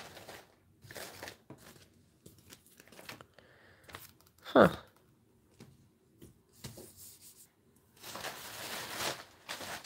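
Rustling and handling of paper and plastic crafting supplies on a desk, with scattered light knocks. About halfway through comes one short, loud squeak that falls in pitch. Near the end there is a longer stretch of rustling.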